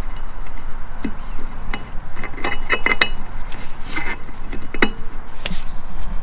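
Hand tools clicking and clinking against metal parts: a string of short, sharp taps and rattles, bunched in two clusters, over a steady low background hum.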